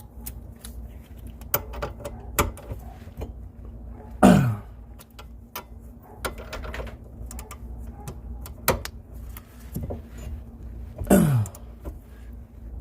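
A long ratchet clicking and knocking as caliper bracket bolts are tightened by hand on a Corvette's rear brake, with two strained grunts of effort about four and eleven seconds in.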